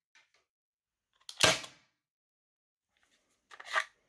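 Byrna HD CO2 air pistol firing two shots about two and a half seconds apart, each a sharp pop with a faint click just before it. They are test shots after reassembly, and the pistol is cycling as it should.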